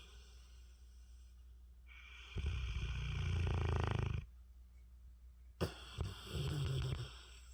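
A mastiff snoring in its sleep: one long snore about two seconds in that grows louder, then a short sharp click, then a second, shorter snore near the end.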